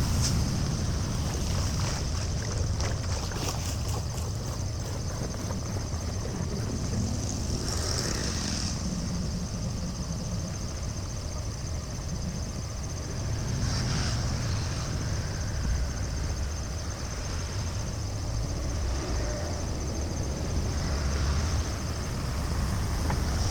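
Floodwater rushing and draining as a steady hiss, with wind rumbling on the microphone and a few brief louder surges of water.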